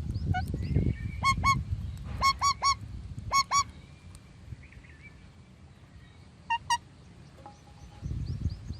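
Parrot squawking: short, harsh calls in quick groups of two or three, about nine in all. A low rumbling noise sits under them at the start and comes back near the end.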